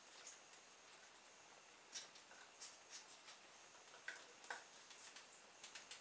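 Near silence, broken by faint, irregular small clicks as hands handle a plastic toy boat fitted with a wound-up mousetrap. A faint steady high whine runs underneath.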